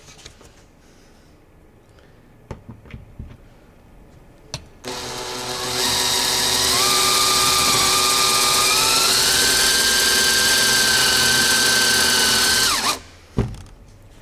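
Power drill driving a winged self-drilling screw (Wingtek) into plywood: after a few faint handling clicks the drill starts about five seconds in and runs for about eight seconds, its whine stepping up in pitch twice, then stops suddenly. The screw's wings have drilled through the wood and reached the steel beam beneath.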